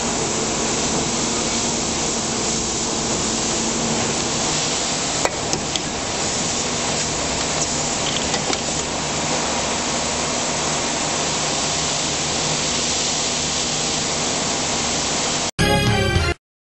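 Plastic injection molding machine running: a steady noisy hiss with a low hum, and a couple of faint clicks about five seconds in. Near the end it cuts abruptly to a burst of music.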